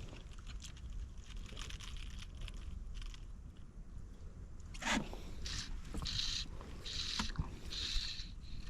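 Low wind rumble on the microphone. About five seconds in, a sharp swish starts a run of hissing swishes, roughly one a second.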